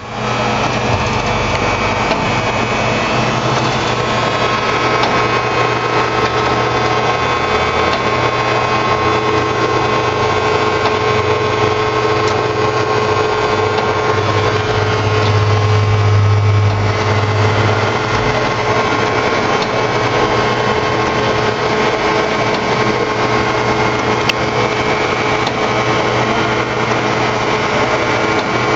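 T5000 tortilla machine oven running with its gas burners lit: a steady mechanical hum over a broad rushing noise. The low hum grows louder for a couple of seconds about halfway through.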